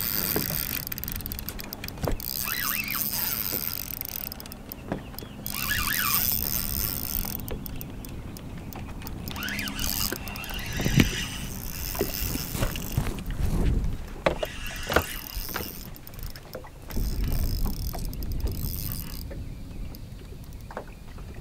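Wind on the microphone and choppy water against a bass boat's hull, with the intermittent clicking and whirring of a spinning reel as line is wound in. A single knock about halfway through stands out.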